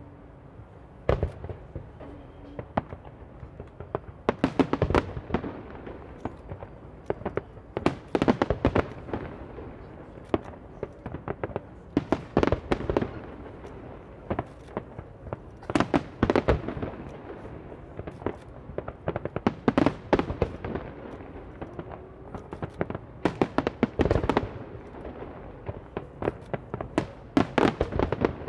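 Aerial fireworks bursting in volleys: clusters of sharp bangs and crackle come about every four seconds, the first about a second in.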